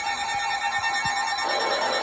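Electronic emergency alert tone: a steady, shrill two-tone alarm. About one and a half seconds in, a second tone rises and starts to wail like a siren.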